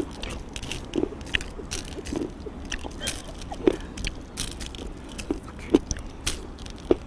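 Irregular clicks and crunches: wooden chopsticks tapping and scraping on ceramic plates of M&M's, with the candy-coated chocolates being chewed.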